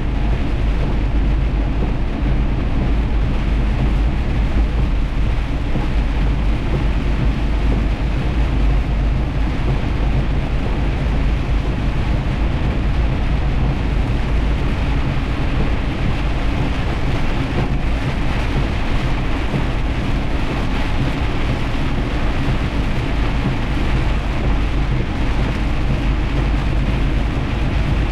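Heavy rain together with the steady low rumble of a semi-truck driving, with no clear breaks or separate impacts.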